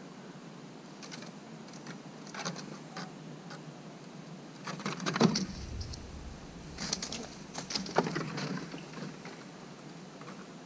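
Eastern gray squirrel scrambling through leaf litter and up a wooden fence post: irregular bursts of quick scratching and rustling, with a dull thump about five seconds in, when the sound is loudest, and more scrabbling around seven to eight seconds in.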